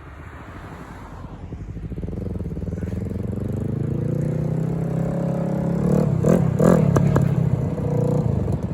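Yamaha R3's parallel-twin engine running as the bike comes closer, growing steadily louder over the first six seconds. A few sharp clatters sound over the engine shortly after.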